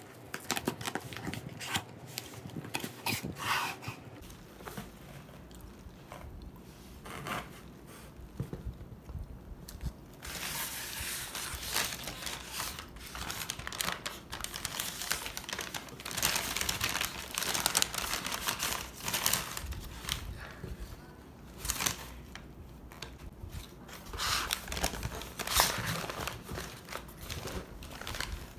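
Packing tape pulled off a cardboard box, then kraft packing paper crinkling and rustling as it is unwrapped and moved aside. The rustling turns dense from about a third of the way in, then comes in short bouts.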